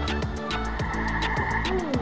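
Music with a steady drum beat over bass notes; a short sliding tone falls near the end.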